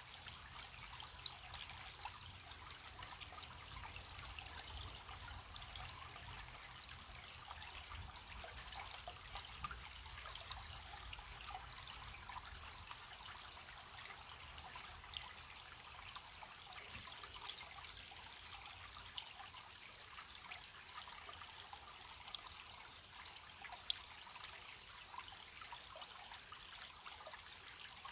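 A gentle stream trickling and babbling steadily, with crickets chirping in an even, high-pitched pulse.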